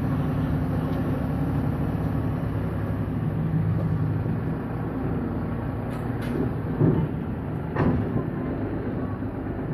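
Diesel tractor engine running steadily as it tows a trailer, with the trailer rattling along and a couple of sharp knocks about seven and eight seconds in.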